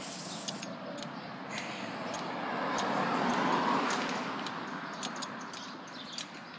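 A vehicle passing along the street: a rushing noise that swells to its loudest about three to four seconds in, then fades. Scattered light clicks and rattles sound close by.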